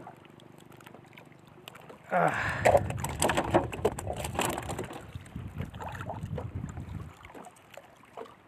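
Rustling and clattering handling noise from a mesh net bag being worked at the boat's side, with water sloshing. It is loud for about five seconds, starting about two seconds in.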